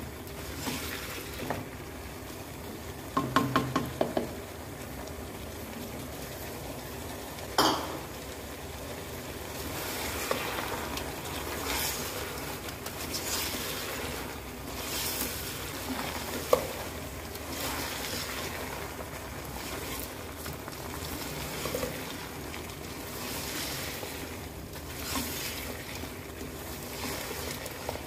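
Mutton pieces frying in hot oil in a deep non-stick pot, sizzling steadily as a spatula stirs and scrapes through them. There is a quick cluster of knocks about three seconds in and single sharp knocks near eight and sixteen seconds.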